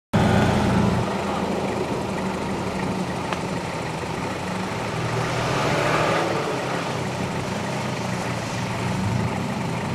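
Pickup truck's engine running steadily at low revs as the truck crawls up a steep sand bank in four-wheel drive, swelling a little about six seconds in.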